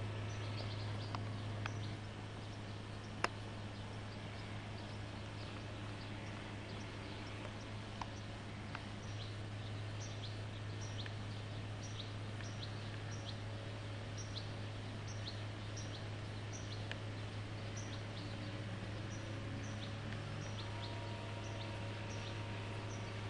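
Open-air countryside ambience under a steady low hum, with short high-pitched bird chirps repeating about once a second through the second half. A single sharp click sounds about three seconds in.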